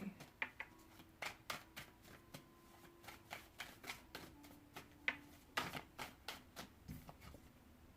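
Tarot cards being shuffled and handled by hand: a run of short, irregular card snaps and flicks.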